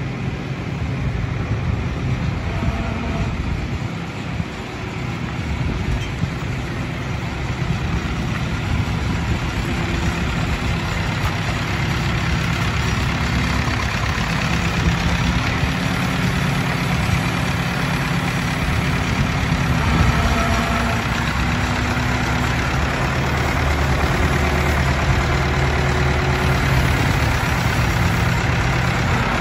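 Allis-Chalmers 175 tractor's engine running steadily as the tractor drives up, growing louder as it comes closer.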